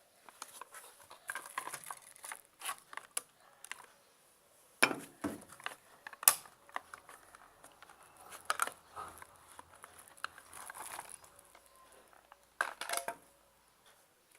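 Small clicks, rattles and knocks of batteries being handled and pressed into a battery-powered toy car's battery compartment, with a few sharper knocks along the way.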